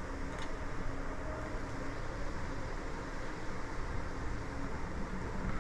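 Steady hiss of cooking on a gas stove: masala paste frying in oil in a wok over a lit burner.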